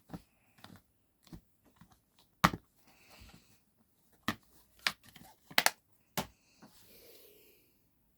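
A series of irregular sharp clicks and knocks, the loudest about two and a half seconds in, with a brief soft hiss near the end.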